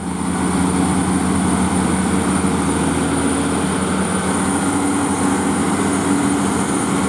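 Heavy diesel truck engine running steadily at a constant pitch, with a thin steady high-pitched whine above it.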